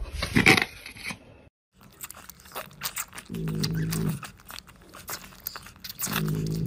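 A puppy suckling at its mother's teat, a run of quick wet sucking and smacking clicks. Two short low grunts come near the middle and near the end, after a brief loud sound at the very start.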